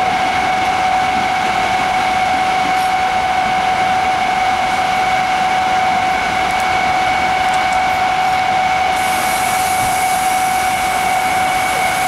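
Steady whine over even fan-like rushing from locomotives standing at the station, with two constant tones; a high hiss joins about nine seconds in.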